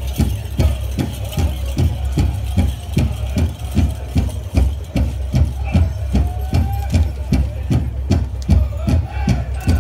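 Powwow drum beaten in a steady, even beat, about three strokes a second, with faint singing over it.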